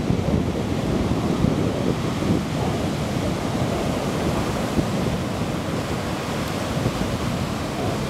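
Storm waves breaking and washing over a pebble beach: a steady, heavy surf with no let-up. Wind buffets the microphone.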